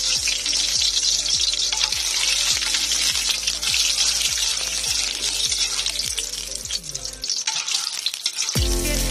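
Background music with a steady beat of about two thumps a second and bass notes, over a steady high hiss. The music drops out briefly about seven seconds in and comes back with heavier bass near the end.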